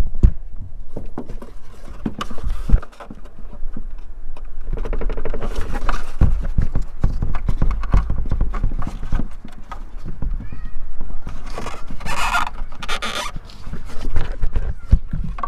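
Plastic rear bumper cover of a BMW X5M being worked loose by hand: a run of irregular plastic clicks, knocks and rattles as it is pulled at its clips, with two louder scraping rustles near the end.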